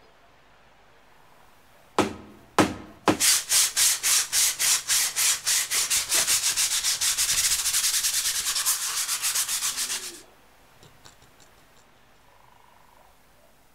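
Sandpaper rubbed back and forth over a cut plywood piece: three separate strokes about two seconds in, then quick even strokes of about four a second that stop abruptly about ten seconds in.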